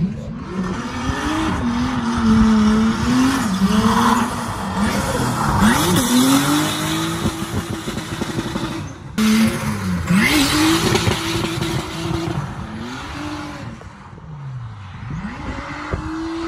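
Car engine revving up and down again and again as the car slides sideways on an icy road, with loud hissing bursts of spinning tyres. There is a short break about nine seconds in before it picks up again.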